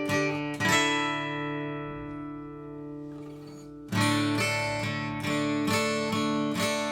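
Background music: acoustic guitar strumming chords, with one chord left to ring and fade for about three seconds before the strumming picks up again.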